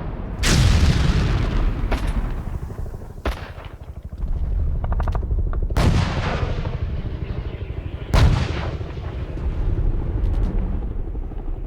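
Modern battle sound effect: three heavy cannon or artillery blasts with long fading rumbles, about half a second, six and eight seconds in, with scattered single gunshots and a short burst of automatic fire around five seconds, over a continuous low rumble of distant gunfire.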